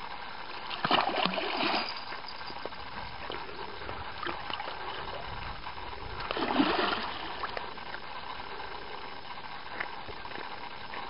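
A large hooked fish thrashing at the surface close to the bank, splashing twice, about a second in and again about six seconds in: it is still fighting and not yet tired.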